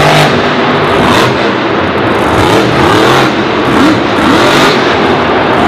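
Dragon monster truck's engine revving hard in repeated surges, the pitch rising and falling about once a second.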